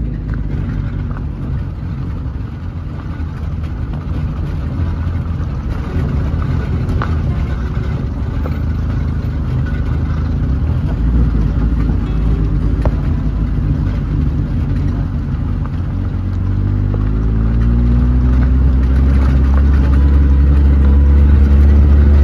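A motor vehicle's engine running with a heavy low rumble, its pitch and loudness climbing over the last few seconds as it speeds up.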